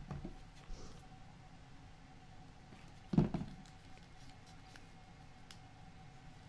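Folded paper units of 3D block origami rustling and clicking as they are handled and pushed together, with a louder soft knock about three seconds in.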